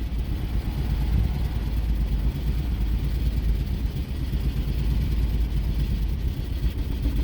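2006 Jeep Commander's 4.7-litre V8 running with a misfire, a steady low rumble, with the throttle held slightly open to keep it from stalling.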